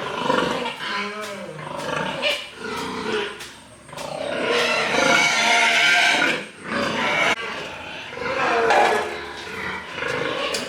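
Pigs squealing and grunting in a run of harsh cries, with one long, loud squeal from about four and a half to six and a half seconds in.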